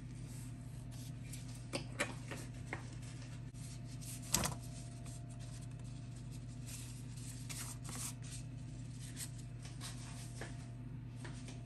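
Sliced onions going into a nonstick frying pan of warming oil: scattered light ticks and crackles with one louder clatter about four seconds in, over a steady low hum, before the onions properly start to sizzle.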